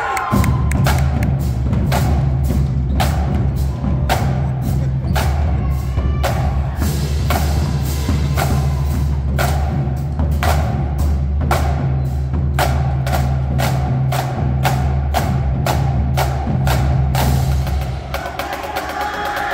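Marching drumline playing: snare, tenor and bass drums and cymbals in a fast rhythmic passage of sharp hits over a deep sustained low drone. The playing stops about 18 seconds in.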